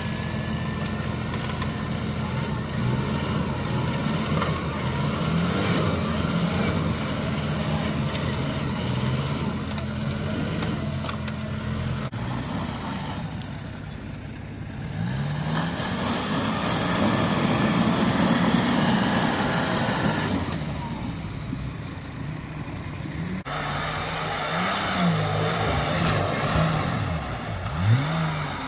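Off-road 4x4 engines revving up and down repeatedly as a Mitsubishi Pajero on big mud tyres churns through deep mud. The sound changes suddenly twice, about twelve seconds in and again a little past halfway, as it cuts to new clips.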